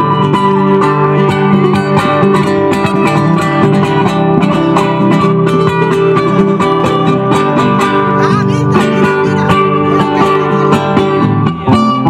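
Music led by acoustic guitar, with many plucked notes.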